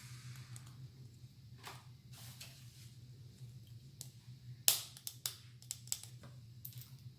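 Scattered small sharp clicks of replacement switches being pressed into the foot pedal's circuit board, the loudest about four and a half seconds in, followed by a quick run of smaller ones. A steady low hum runs underneath.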